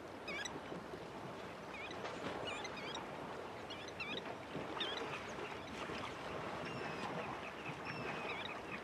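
Elephants wading and bathing in a river: steady sloshing and splashing of water around their bodies, with scattered short, high bird chirps.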